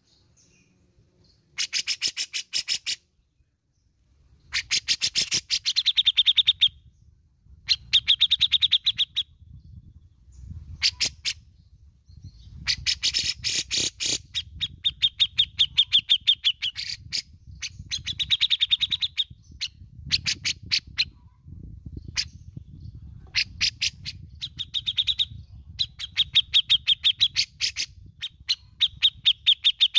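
Grey-cheeked bulbul (cucak jenggot) calling in about ten loud bursts of rapid chattering notes, each burst a second or two long, several ending in a fast trill held on one pitch.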